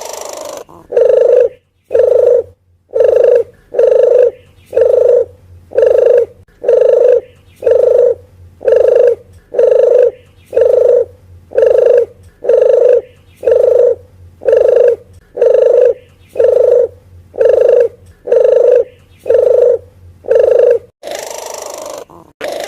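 Puter geni dove lure call: a long run of loud, short, even coos at about one a second, followed near the end by a longer, rougher phrase.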